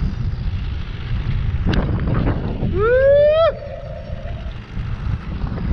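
Wind buffeting the microphone, a steady low rumble throughout. About three seconds in, a short rising whoop is the loudest moment. Just before it comes a single sharp click.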